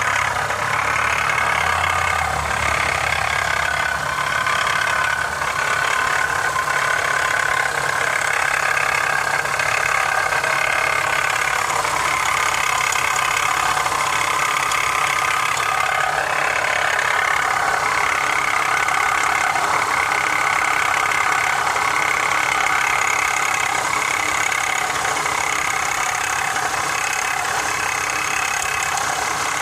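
2015 Honda CR-V engine idling steadily with a rattling, knocking noise.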